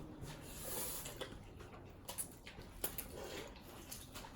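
Faint eating sounds as several people start on bowls of noodles: scattered soft clicks and clinks of utensils against bowls, with a couple of sharper ticks about two and three seconds in.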